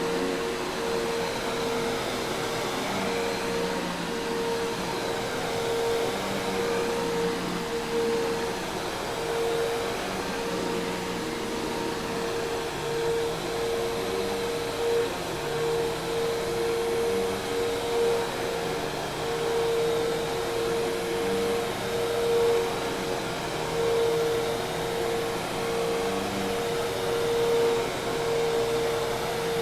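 Hoover Task Vac commercial vacuum cleaner running steadily: a constant mid-pitched motor hum over a rush of air, the level wavering slightly.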